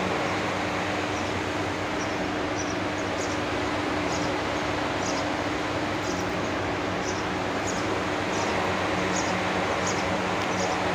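Steady whir of ceiling fans with a low hum, and a faint regular tick about every two-thirds of a second.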